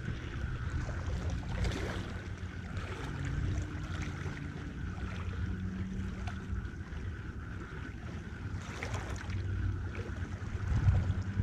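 Wind and water lapping at a rocky bay shoreline, with a faint steady low hum underneath.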